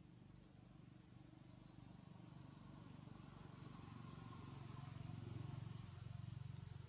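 Near silence: quiet outdoor ambience with a faint low rumble that swells a little past the middle.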